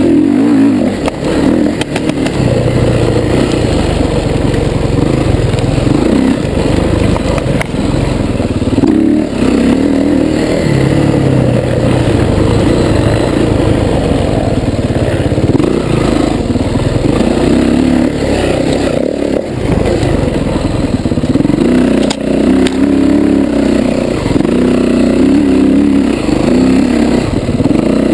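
Dirt bike engine being ridden hard, heard close from a handlebar-mounted camera, its revs rising and falling again and again with throttle and gear changes.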